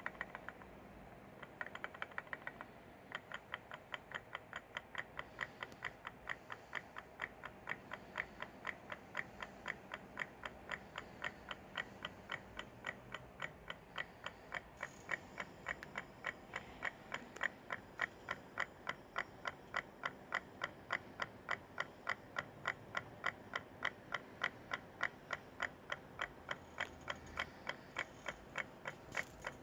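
Small battery-driven pulse motor running, a ferrite rod inside its coil knocking with each pulse: a steady train of sharp clicks at about two to three a second, uneven for the first few seconds.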